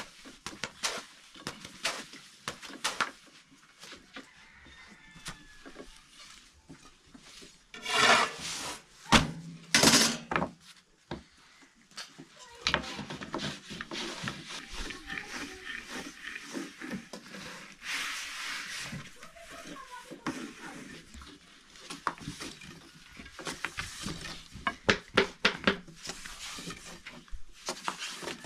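Thin wooden rolling pins rolling and tapping lavash dough on low wooden boards: a steady run of soft rubbing, light wooden knocks and clacks, with two louder noisy bursts about eight and ten seconds in and a quick string of sharp taps near the end.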